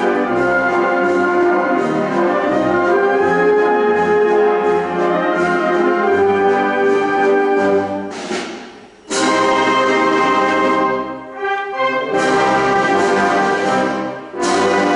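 Symphonic wind band playing a pasodoble, brass to the fore over a steady bass beat. Just past the middle the music dies away briefly and the full band comes back in together, with two shorter breaks after.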